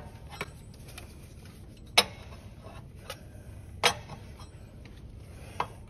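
Fan clutch being turned by hand to unscrew it from the water pump's threaded hub, which is a little stuck. Four sharp clicks come about two seconds apart, the loudest about two seconds in.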